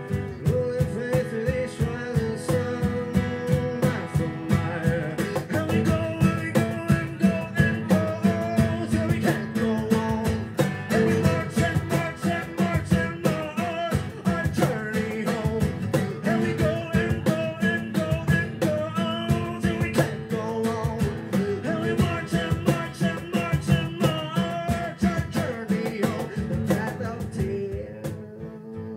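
Singing with a strummed steel-string acoustic guitar in a steady rhythm, played live; the music gets quieter near the end.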